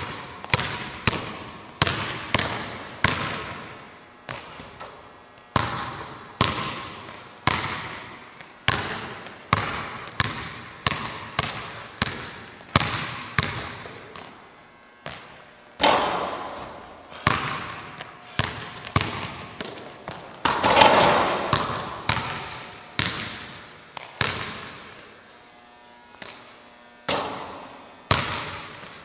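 A basketball being dribbled on a hardwood gym floor, the bounces echoing in the hall, one or two a second with short pauses, and a few short high sneaker squeaks. About two-thirds of the way through comes a louder, longer noisy crash.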